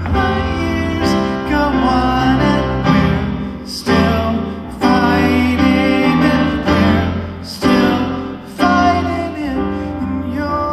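Grand piano played live in a slow ballad, with a man singing at the piano. Several strong chords are struck in the second half.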